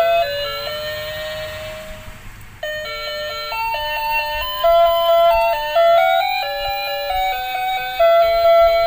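Electronic jingle from a toy ice cream cart's music chip: a simple beeping tune, one note at a time. A phrase ends on a held note that fades out about two seconds in, then the tune starts over.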